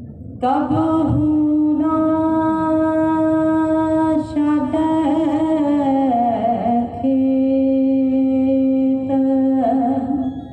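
Slow devotional singing: a voice holds long, steady notes a few seconds each, with short breaks between them and a downward slide about six seconds in.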